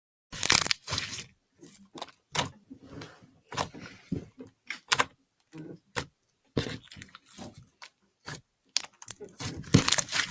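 Homemade clear-glue slime being squished and pulled by hand, giving irregular sticky pops, clicks and crackles that come in quick uneven bursts.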